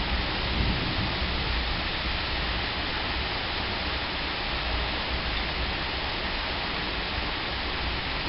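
Steady rushing noise with a low rumble beneath it, unchanging throughout.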